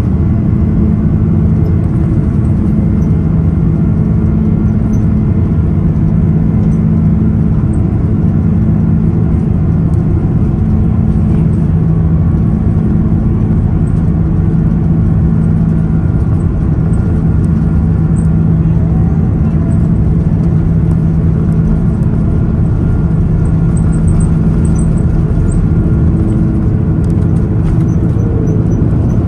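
Airbus A330 jet engines and airframe heard from inside the passenger cabin while the aircraft taxis: a steady, loud drone with a low hum that neither rises nor falls.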